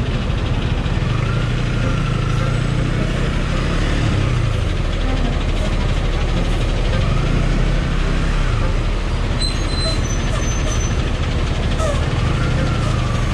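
Road traffic heard from a motorcycle: a steady engine rumble and rush of noise, with engine pitch rising and falling about three times.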